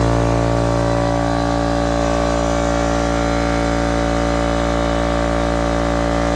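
Husky 8-gallon electric air compressor running steadily, its motor and pump filling the tank with air. A loud, even hum with a steady pitch.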